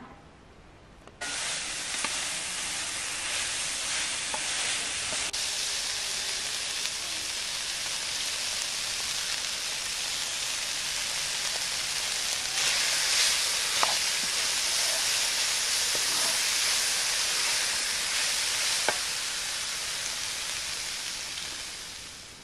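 Minced meat with barberries frying in a large metal kazan, sizzling steadily while it is stirred with a wooden spoon, with a few short clicks from the spoon. The sizzle starts suddenly about a second in, grows a little louder about halfway through and fades out near the end.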